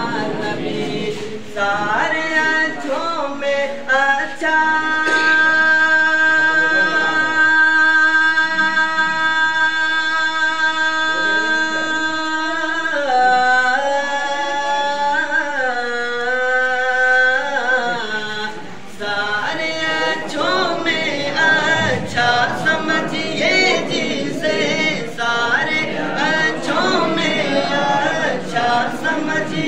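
Unaccompanied group of male voices singing a devotional chant. From about five seconds in, one voice holds a single long note for about eight seconds, then slides down in steps. The whole group comes back in together near the end.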